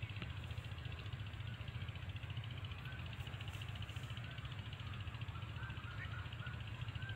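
Outdoor ambience: a steady, rapidly pulsing high buzz of insects with a few short bird chirps in the second half, over a constant low rumble.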